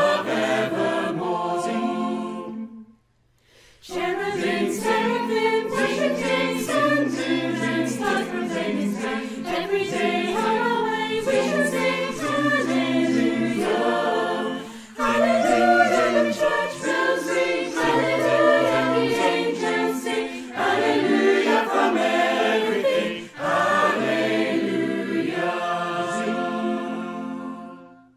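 Mixed choir of men's and women's voices singing a cappella, a virtual choir of separate home recordings mixed together. The singing breaks off briefly about three seconds in, then carries on until the last chord fades out at the end.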